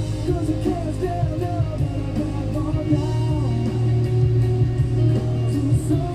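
Background rock-style song with guitar and a steady beat, singing woven through it.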